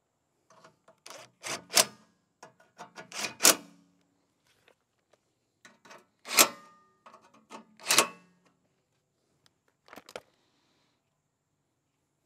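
Cordless impact driver run in short bursts, clattering and hammering as it works fasteners loose on the mower engine. There are about five bursts, the loudest around six and eight seconds in.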